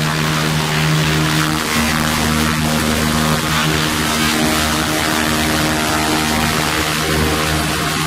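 200 W fiber laser rust-cleaning machine ablating rust from a steel bar: a steady hiss over a constant machine hum of several low tones, with no breaks.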